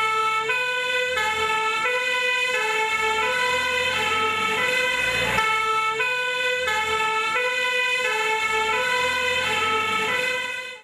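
Electronic ambulance siren sounding a stepped, warbling pattern, switching pitch several times a second, then cutting off suddenly near the end.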